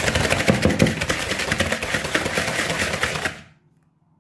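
Wire whisk beating egg yolks and sugar in a bowl: a fast, rhythmic run of clicks and scrapes of the wires against the bowl, stopping abruptly about three seconds in.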